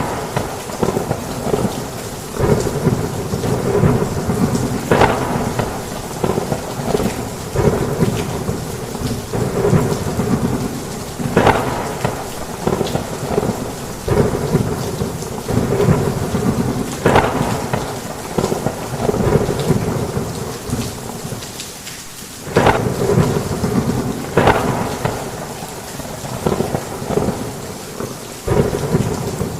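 Heavy rain pouring steadily under a continuous low rumble of thunder, broken by several sudden, louder thunder claps.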